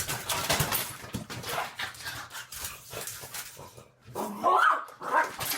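A dog: several seconds of scuffling, clattering noise, then two short pitched vocal calls near the end.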